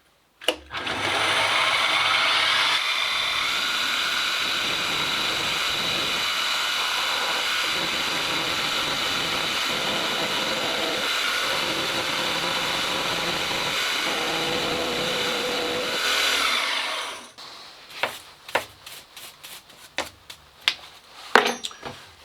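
Milling machine running, its cutter taking material off a welded steel part as a steady mechanical whine with several steady tones. It stops about 17 seconds in, followed by scattered clicks and clunks of handling.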